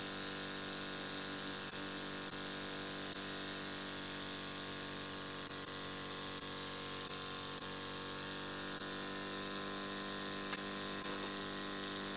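Small homemade vertical model steam engine running at high speed: a steady, even buzz that sounds like a little electric motor going fast.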